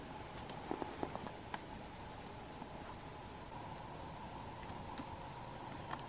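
Small birds at a feeder: a few faint, very short high chirps and scattered light taps and clicks, bunched about a second in, over a steady low hiss.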